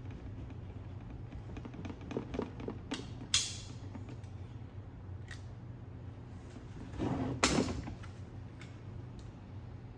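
Packaging and parts being handled during an unboxing: a few small clicks, a sharp snap about three seconds in, and a scraping rustle a little after seven seconds, over a steady low hum.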